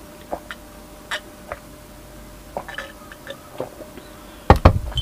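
Juice gulped down from a glass mug, a series of soft swallows spaced irregularly, then the heavy glass mug set down on a wooden tabletop with a loud knock near the end.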